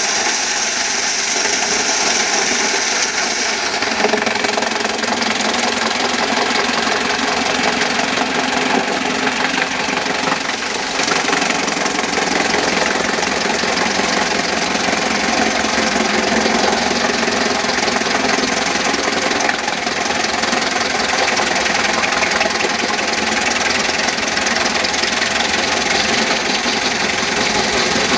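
An engine running steadily under a dense mechanical clatter, with a brief dip in level about ten seconds in.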